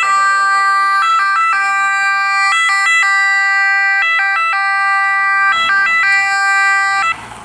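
Ambulance two-tone siren. It holds one note for about a second at a time, broken by quick back-and-forth switches between the two tones, and cuts off suddenly near the end.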